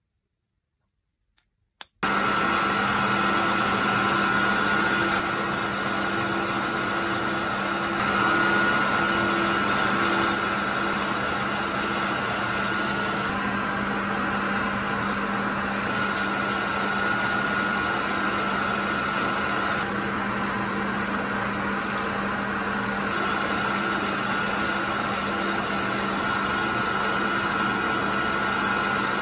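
Small metal lathe running steadily with a constant machine hum, starting abruptly about two seconds in after a few faint clicks.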